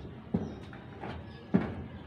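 Two dull knocks about a second apart, from work on the corrugated metal roof sheets.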